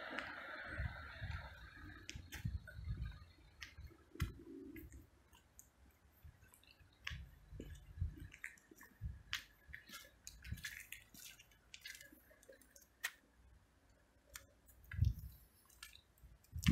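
Faint footsteps of a person walking on a street, irregular soft thuds with scattered clicks and rustles of a handheld phone. Traffic noise fades out in the first two seconds.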